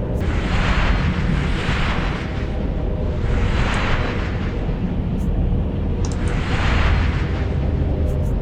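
Science-fiction Force-healing sound effect. A steady deep rumble runs underneath while breathy whooshes swell and fade every one to three seconds.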